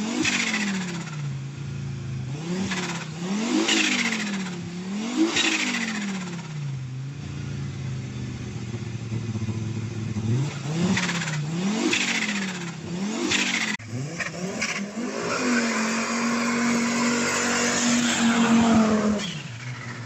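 Fiat Marea Turbo's five-cylinder turbo engine revved in a series of blips, each lift-off followed by the fluttering chatter of turbo compressor surge. Later it revs up and holds high for several seconds in a burnout with tyres squealing, then drops off shortly before the end.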